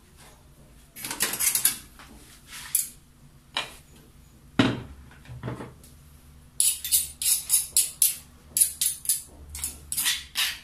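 A metal utensil scraping and clinking against a stone mortar as the pounded shallot, garlic and ginger paste is scooped out, ending in a quick run of sharp clinks several a second. A single louder knock comes a little before halfway.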